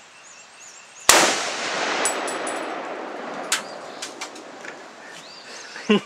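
A single shot from an M1 Garand rifle in .30-06: a sharp crack about a second in that echoes and fades over about two seconds. A few lighter clicks follow, and a man laughs near the end.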